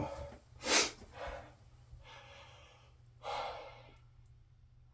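A man taking a few sharp breaths, the loudest about a second in and another around three and a half seconds, as a reaction to the intense menthol chill of an ultra-mentholated aftershave and balm on his face.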